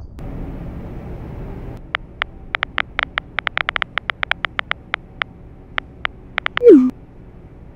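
Low rumbling noise in the first couple of seconds, then a quick, irregular run of about two dozen touchscreen keyboard tap clicks as a message is typed, then a loud falling 'bloop' near the end: a message-sent sound effect.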